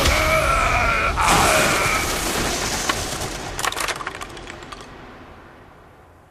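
Anime sword-strike sound effects: a loud crash and rush of noise in the first two seconds, then scattered sharp cracks and clatters that fade away.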